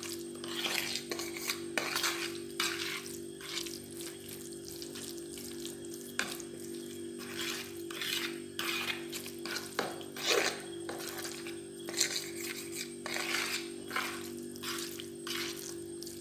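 A fork stirring and scraping a thick, crumbly cauliflower-and-flour mixture in a plastic bowl, in quick uneven strokes, over a steady low hum.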